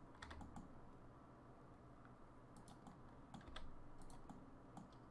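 Faint, scattered clicks of computer keys being pressed, in small clusters a second or so apart, over a low hum.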